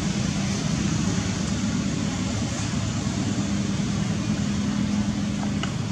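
Steady low motor drone with no breaks, with a couple of faint ticks near the end.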